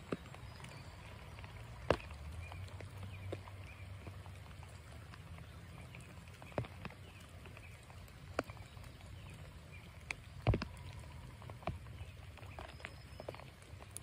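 Steady rain falling on a creek, with irregular sharp taps of drops landing close to the microphone over a low steady rumble. The loudest taps come about two seconds in and again near ten seconds. Faint high chirps come and go.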